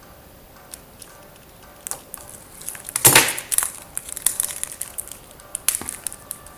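Plastic wrapping around a stack of trading cards being torn open and peeled off: a crinkling rustle, with one loud rip about three seconds in.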